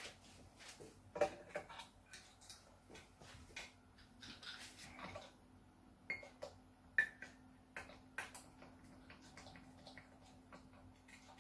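Epiphone Les Paul Junior's strings being slackened and unwound at the tuners: scattered light clicks and a few small metallic pings from the strings and tuner posts, with a faint steady hum under it from about three seconds in.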